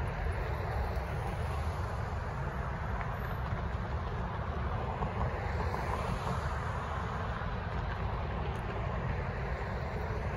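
Steady rumble of cars and a pickup driving along the street and over the rail crossing, with wind buffeting the microphone.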